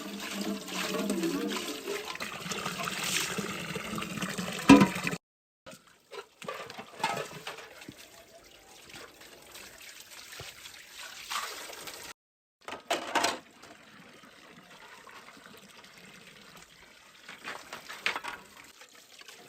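Water sounds: liquid splashing and trickling, broken by a few short silent cuts.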